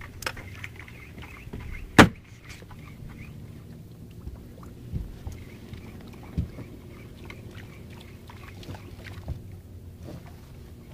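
Boat engine idling with a steady low hum, broken by a few sharp knocks, the loudest about two seconds in.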